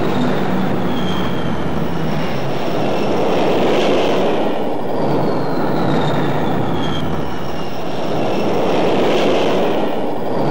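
Jet engine noise: a loud steady roar with a high whine that slides down in pitch, starting again about every five seconds as the roar swells.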